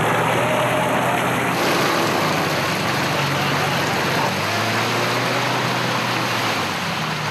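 Off-road 4x4 vehicle engine running steadily under a dense rushing noise.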